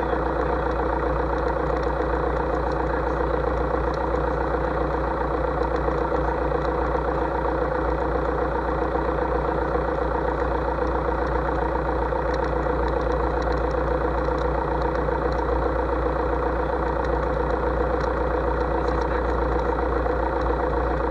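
Light aircraft's piston engine idling steadily, an even, unchanging drone.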